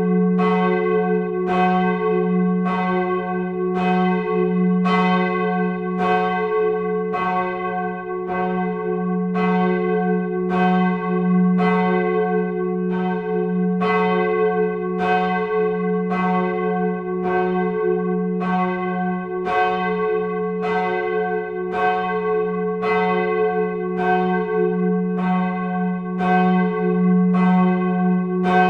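Church bells of the Martinskirche ringing, swung in the tower, with strikes coming steadily less than a second apart. Each new strike sounds over the hum still ringing from the ones before.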